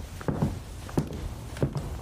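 Footsteps at an even walking pace, about three steps, over a steady low background hum.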